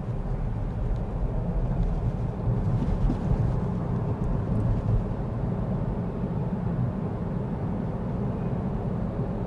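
Steady low road and tyre rumble heard inside the cabin of a Tesla Model 3, an electric car with no engine sound, moving at about 30 mph.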